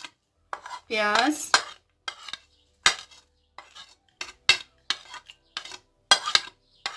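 A spoon clinking and scraping against a plate and a mixing bowl in a run of short, irregular taps, as chopped onion is pushed off the plate into a bowl of chicken pieces for marinating.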